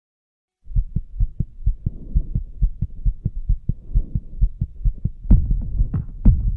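A rapid low throbbing pulse, about five thumps a second, starts suddenly after a brief silence. Sharper, louder hits join it about five seconds in.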